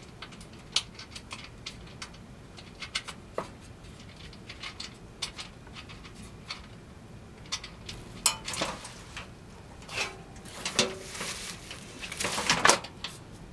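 Irregular small metallic clicks and clinks of the kit's wrench working the nuts onto the studs, with a few longer scraping noises in the second half, the loudest just before the end.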